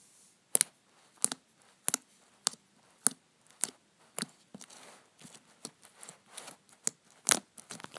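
Fluffy slime being squeezed and stretched by hand, giving about seven sharp pops at an even pace over the first few seconds, then softer crackling and one more loud pop near the end.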